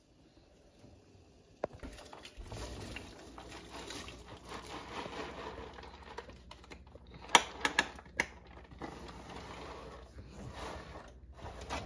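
Metal kitchen tongs clicking and clinking against a steaming aluminium stockpot and a plate as food is lifted out, with a cluster of sharp clicks a little past halfway over steady background noise.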